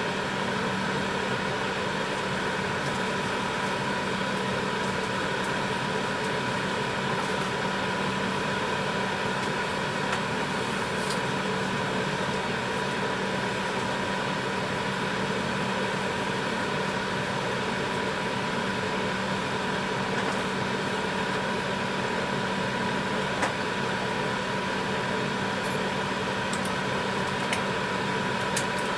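A pan of tteokbokki boiling on the stove, under a steady mechanical hum with a constant mid-pitched tone. A couple of faint clicks come near the end.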